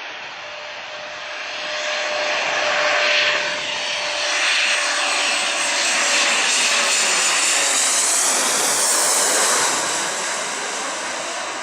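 Jet airliner passing close by, its engine noise swelling about two seconds in, holding loud for several seconds, then fading near the end.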